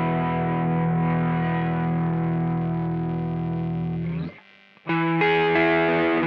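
Electric guitar played through a JOYO Vintage Overdrive pedal, a Tube Screamer-style overdrive. A held, overdriven chord rings until about four seconds in, when it is cut off. After a short gap, a run of new notes and chords is picked.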